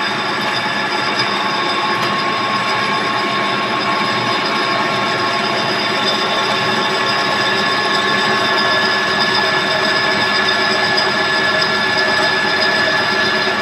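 Lathe running steadily: a continuous mechanical whir with several steady whining tones from its gears.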